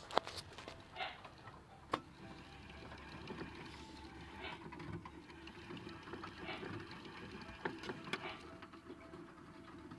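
Plastic hamster exercise wheel whirring and rattling as a teddy bear hamster runs in it, with a couple of sharp clicks in the first two seconds before the running settles into a steady whir.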